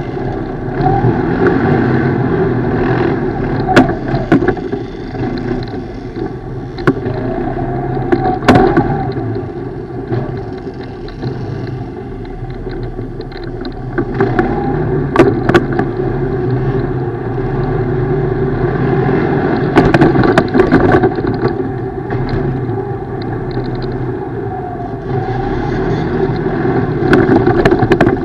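ATV engine running under load off-road, its revs rising and falling again and again. Sharp knocks and clatters come through now and then as the machine goes over rough ground.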